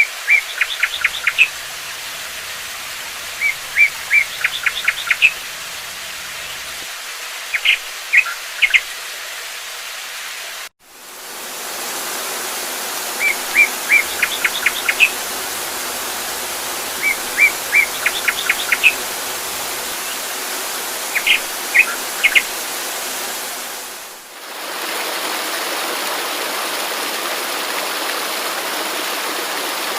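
Steady rushing water of a waterfall or stream, with a songbird singing a short phrase of quick high chirps every few seconds. The track cuts out briefly about a third of the way in and dips again near three-quarters through, after which only the water continues.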